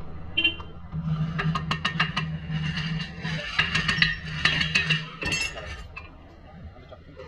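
Steel hand tools and sockets clinking and knocking against metal while working on a car's rear suspension, in a quick irregular run of sharp clinks that thins out after about five seconds. A steady low hum runs underneath.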